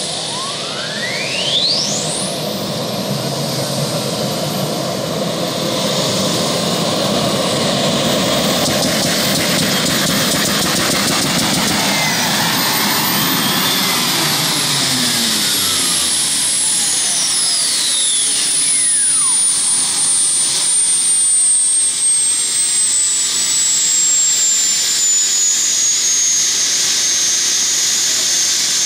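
A modified pulling tractor running at full power as it drags the weight-transfer sled down the track. It makes a loud, sustained engine run with a high whine that climbs steeply in the first couple of seconds, then slowly falls through the second half.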